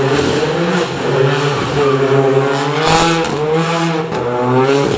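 Renault Clio rally car's engine accelerating hard, the revs climbing and dropping back at each of several upshifts. There is a brief burst of noise about three seconds in.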